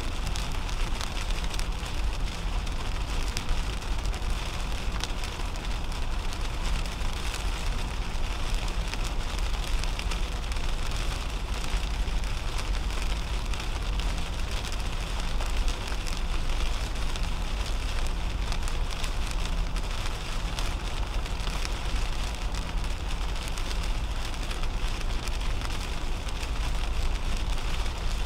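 Rain hitting the windshield and roof of a 2010 Toyota Camry at highway speed, heard inside the cabin as many small ticks over an even hiss. Underneath runs a steady low rumble of tyres and the car on the wet road.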